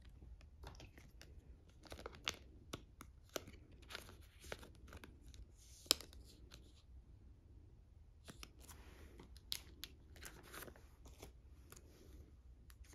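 Clear plastic photocard sleeve and binder-page pocket crinkling and rustling as a photocard is handled and slid into the pocket: a run of small, irregular crinkles, clicks and scrapes, with a longer rustle about two thirds of the way through.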